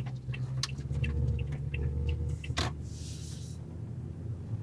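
Car cabin noise while driving slowly: a steady low engine and road rumble, with scattered small clicks and ticks, a sharper click about two and a half seconds in and a brief hiss just after.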